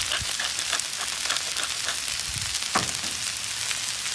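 Asparagus and steak sizzling steadily on a hot flat-top griddle, with light clicking from a pepper grinder being turned over the food. One sharper sliding sound comes near three seconds in.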